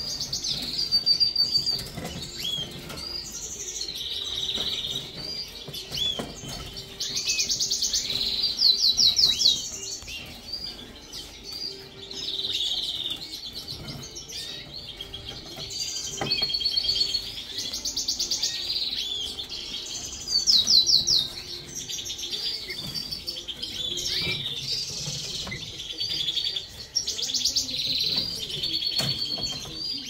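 Many caged canaries singing and chirping at once, with other finches mixed in: a dense, continuous chorus of whistled notes and fast rattling trills, along with some wing flutters and rustles in the cages.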